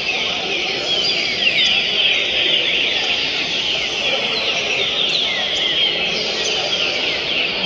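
Many caged green-winged saltators (trinca-ferros) singing at once, a dense chorus of overlapping short whistled phrases, over a low murmur.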